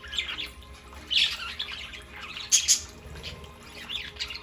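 Budgerigars chirping and squawking in a run of short, high calls, loudest a little past the middle.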